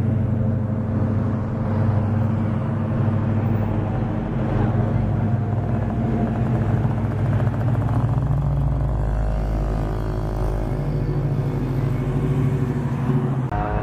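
Engines of classic American cars running as they roll past at low speed, a Plymouth Barracuda and then a late-1960s Ford Mustang, a deep continuous engine sound with a rising pitched note partway through.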